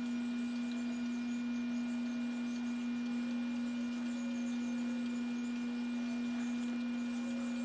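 Hamilton Beach two-slice toaster toasting, its heating elements giving off a steady electrical hum at one low pitch with faint higher tones above it.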